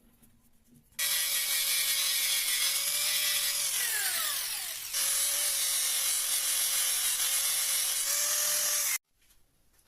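A power tool running against the work with a harsh, abrasive hiss. It starts abruptly about a second in and stops abruptly near the end. About halfway a falling tone ends at a sudden cut, and the sound resumes at once.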